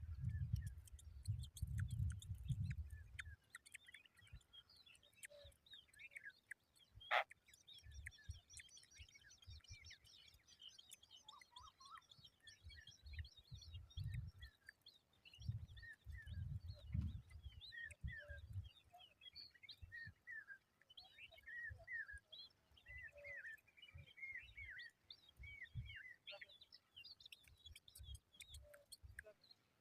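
Small birds chirping: many short, high chirps and twitters, thickest in the middle and again near the end. Low rumbling bumps come in the first few seconds and again around the middle, with one sharp click about seven seconds in.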